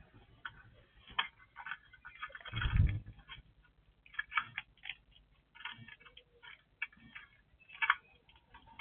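Small birds chirping in short, quick, repeated calls, with a brief louder low thump or rumble about two and a half seconds in.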